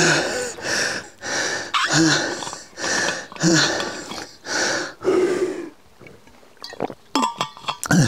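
A man breathing hard and grunting with exertion, a loud, voiced breath about once a second, from pedalling a bicycle towing a caravan up a steep climb. The breaths stop near the end, followed by a few sharp clicks.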